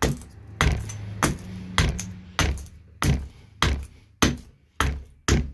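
Carving axe chopping down the side of a green maple spoon blank held on a wooden stump: about ten sharp knocks in a steady rhythm, a little under two a second, as chips are stripped off.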